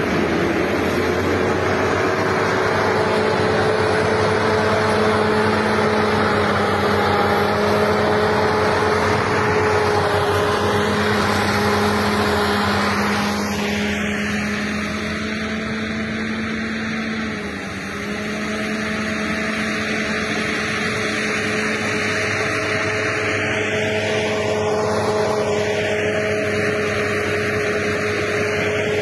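Heavy snow-clearing machinery engine running with a steady, continuous drone.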